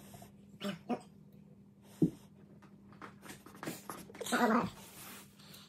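A glass jug knocked over onto a rug lands with a dull knock about two seconds in, followed a couple of seconds later by a short cry from a pet.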